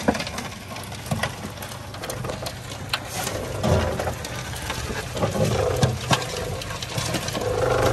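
Live crawfish clicking and rustling against a metal sorting tray as a gloved hand sorts the catch, over the steady idle of an outboard motor.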